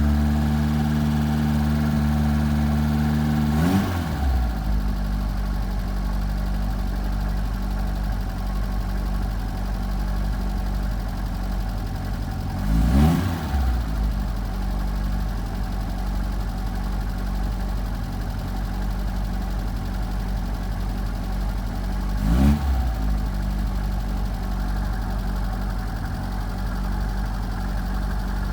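1978 Fiat 124 Spider's twin-cam four-cylinder engine idling, blipped three times, about nine seconds apart; each blip is a quick rise and fall in pitch. The engine settles to a lower idle after the first blip. This is the rough idle being diagnosed.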